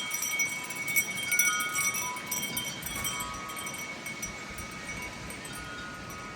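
Metal wind chimes ringing in gusty wind, several pitches struck over and over and overlapping, with a few sharp clinks and wind noise on the microphone. The chiming thins out after about three seconds.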